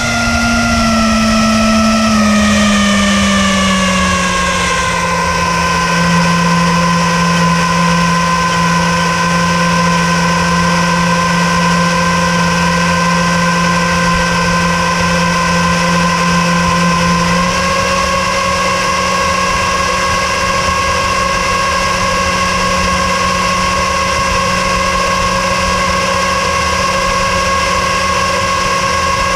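Boat motor running, its pitch dropping over the first few seconds as it slows, then holding steady with a small step up in pitch about two-thirds of the way through.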